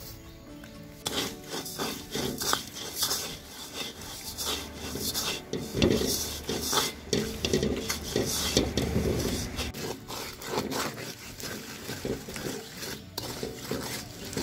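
A coconut-shell spoon scraping and stirring sugar around a metal wok as it melts into a paste: a run of irregular scrapes against the metal, starting about a second in.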